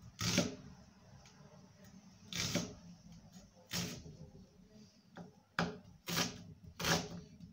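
Kitchen knife cutting through an onion and knocking on a wooden cutting board: about six sharp chops, irregularly spaced.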